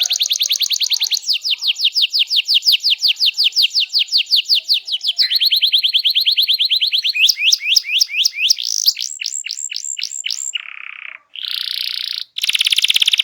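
Domestic canary singing a fast, energetic song of rapid trills: long runs of quick repeated downward-sweeping notes at about ten a second, then a finer buzzing roll, then slower, higher sweeping notes. Two brief breaks come near the end before another rapid roll.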